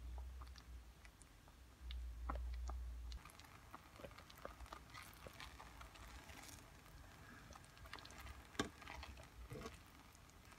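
Ume plums simmering in a pot for jam, bubbling with faint scattered popping, then stirred with a plastic spatula partway through, with squelching and scraping and one sharp knock against the pot near the end. A brief low rumble sounds about two seconds in.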